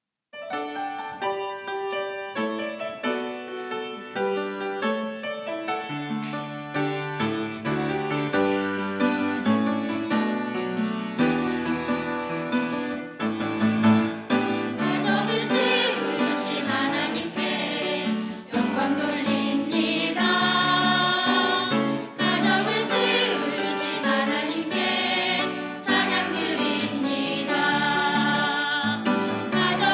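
Gospel song: an instrumental introduction with piano-like struck notes, then singing voices join over the accompaniment about halfway through.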